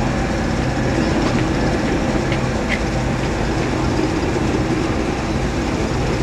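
Steam locomotive moving slowly towards the listener: a steady rumble and hiss of steam.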